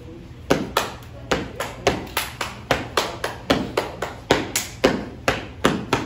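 A group of children clapping their hands in a quick rhythmic pattern, about four sharp claps a second, starting about half a second in.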